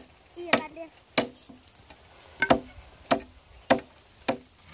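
A machete chopping into a green bamboo stalk: about seven sharp, hard knocks roughly two a second, with a short pause about a second in.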